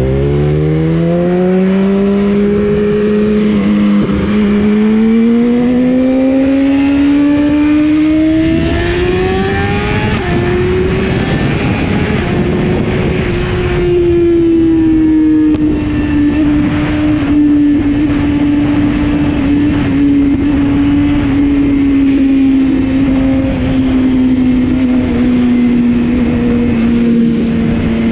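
BMW S1000RR's inline-four engine accelerating hard. The note climbs steeply, drops with upshifts about four and ten seconds in, then holds a steady high-speed note that eases slowly. Wind rushes over the microphone through the middle.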